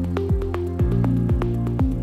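Upbeat corporate-style background music, with a steady kick drum about twice a second under held bass and synth notes.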